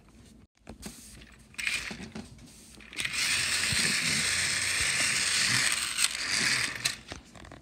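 Tomy Emily battery toy train's small electric motor and plastic gears whirring steadily as it runs along plastic track. It starts about three seconds in and stops near the end, after a few clicks from handling the toy.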